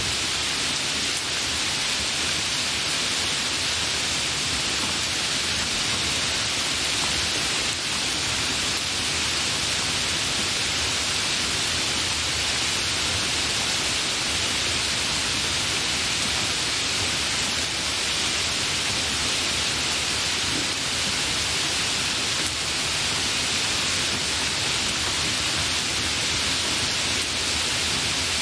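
Hard rain falling in a steady, even hiss with no breaks or thunder.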